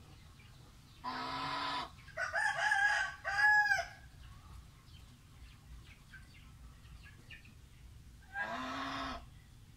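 Domestic fowl calling: a drawn-out call about a second in, then a louder broken call with arching notes, and another drawn-out call near the end.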